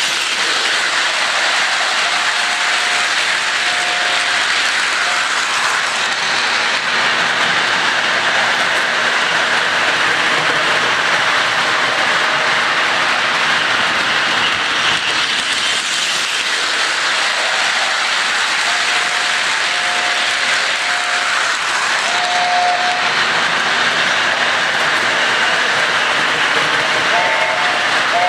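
Electric model steam locomotive and its freight cars running on a toy train layout: a steady rushing and rattling of small wheels and motor on the track.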